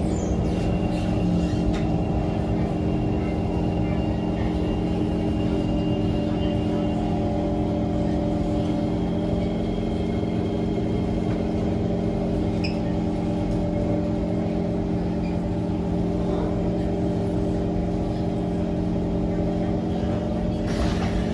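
Steady electrical hum of a stationary Kawasaki C151 train heard from inside the car: several fixed tones held level throughout, with a faint high whistle that stops about seven seconds in.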